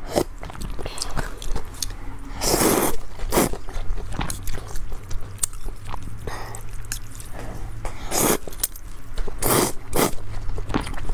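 Close-miked eating of noodle soup: broth sipped from a spoon, wet chewing, and noodles slurped in several short noisy sucks, with small clicks between.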